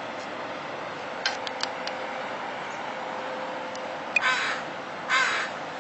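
Two short, harsh bird calls about a second apart, over a steady background hiss, with a few faint clicks earlier on.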